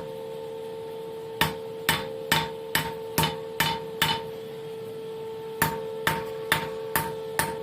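Hand hammer striking a high-carbon steel bar on an anvil, about two blows a second. There is a run of seven blows, a pause of about a second and a half, then five more. A steady hum runs underneath.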